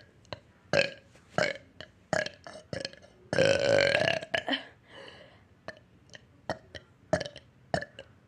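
A person burping on purpose over and over: a run of short, quick burps, with one long, loud burp lasting about a second starting about three seconds in.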